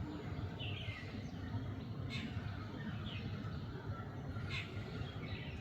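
Bird calls: about five short notes, each dropping quickly in pitch, spaced roughly a second apart, over a steady low background rumble.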